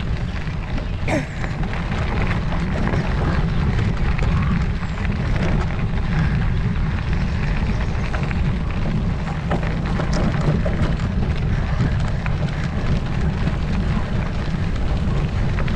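Wind buffeting the microphone: a steady low rumble, with faint scattered clicks above it.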